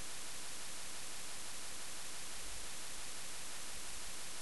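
Steady hiss of the microphone and recording noise floor, with no other distinct sound.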